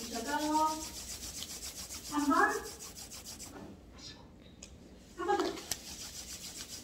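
Hands rubbing briskly palm against palm, a fast, even rasping swish. It pauses for about a second and a half past the middle while the hands rest on the face, then starts again.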